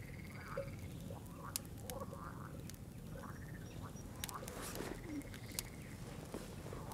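Frogs croaking in a loose chorus of short, bending calls, several a second, over a steady low background rumble, with a few sharp clicks scattered through.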